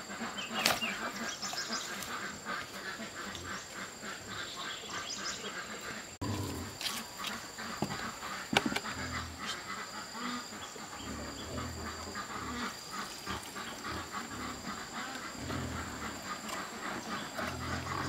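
Puppies whimpering and yapping, with a steady high-pitched hum in the background.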